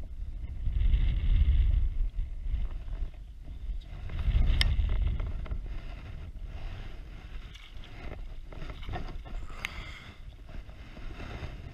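Water splashing and sloshing at a float tube as a hooked fish is brought in and a landing net dips into the lake and lifts out dripping, with wind buffeting the microphone in low gusts. Two sharp ticks about five seconds apart.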